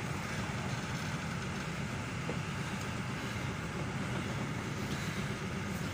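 Vintage passenger carriages of a heritage train rolling past, a steady rumble of the wheels on the rails.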